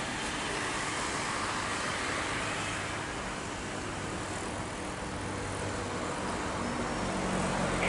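Steady, even engine roar with no clear pitch and no distinct events.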